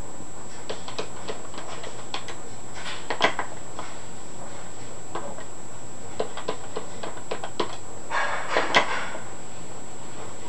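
Irregular plastic clicks and taps of a desk telephone being handled: the handset lifted and keypad buttons pressed to send commands to a home-built touch-tone decoder. A denser clatter with the loudest click comes about eight to nine seconds in, as the handset is set back in its cradle. A faint steady high whine sits underneath.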